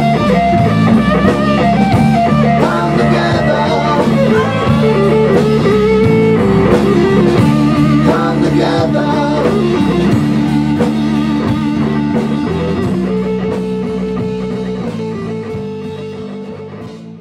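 Live rock band playing without vocals: electric guitar lines over electric bass and a drum kit. Past the middle the playing thins to held notes that ring and fade out as the song ends.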